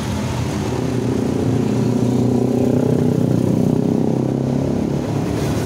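A motor vehicle's engine running close by on the road, getting louder from about a second and a half in and easing off again after about four seconds.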